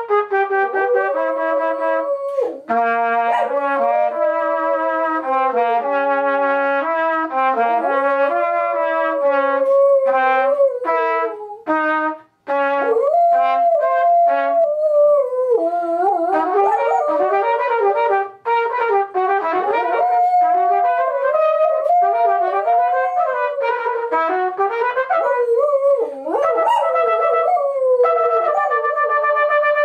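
A trumpet playing a tune of held notes that step up and down. From about halfway, a small dog howls along with it, its wavering, sliding pitch weaving over the trumpet's notes.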